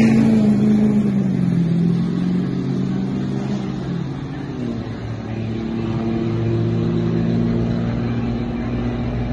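Pickup truck engine at full throttle on a drag-strip pass, heard from the grandstand as it pulls away down the track. Its pitch falls over the first two seconds, then a steady engine drone holds through the rest.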